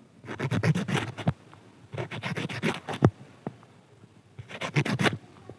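A knife cutting through a ridge gourd (torai) in three quick runs of crisp, rapid strokes, several a second, with a sharper single stroke about three seconds in.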